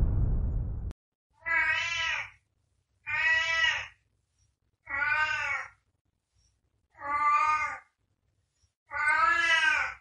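The tail of a loud, low boom fading out and cutting off about a second in, then a domestic cat meowing five times, each meow about a second long, roughly two seconds apart.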